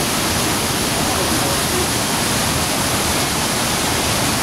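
Steady, loud rushing noise with faint voices in the background.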